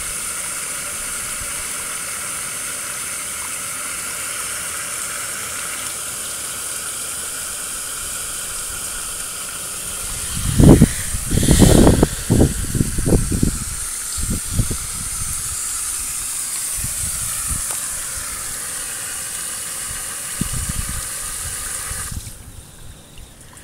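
Homemade floating aerator fountain, driven by a salvaged hair-dryer fan motor, spraying water: a steady hiss with a faint whine in it. A run of loud low thumps comes about halfway through. The spray cuts off about a second and a half before the end as the fountain stops.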